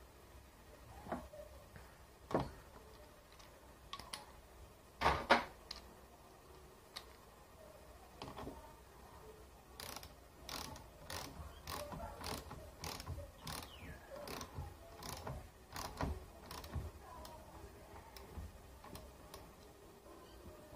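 Metal clicks and knocks of a hand tool as the negative terminal clamp is fitted and tightened onto a car battery post: a louder knock about five seconds in, then a run of quick clicks, about two a second, through much of the second half.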